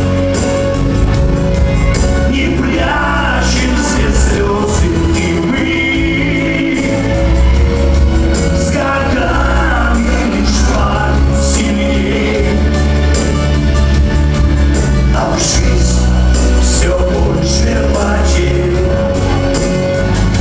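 Live chanson band playing an instrumental passage between sung lines: electric bass and keyboard over drums, with regular cymbal hits.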